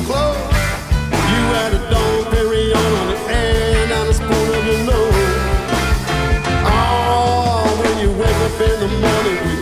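Live rock band playing an instrumental passage: piano, electric guitar and drums, with a sustained, wavering melody line over a steady beat.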